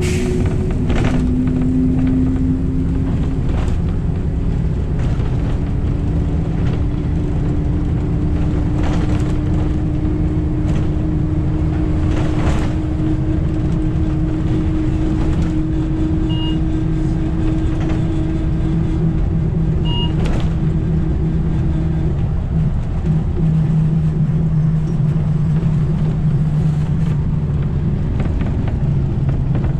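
Inside a moving city bus: the steady low rumble of the bus and road, with a motor whine that climbs slowly in pitch over most of the stretch, and a few light knocks and rattles.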